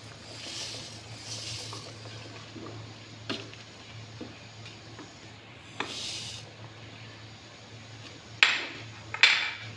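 Sago pearls poured into a pot of red bean porridge, a soft rustling pour in the first couple of seconds, then a spatula stirring the pot with a few knocks and scrapes against its side, the loudest two near the end. A steady low hum runs underneath.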